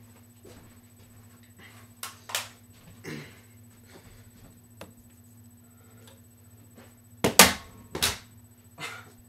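Thrown objects knocking and clattering against an electric fan, over a steady low hum. A few sharp knocks come about two to three seconds in, and the loudest come close together between seven and eight seconds in.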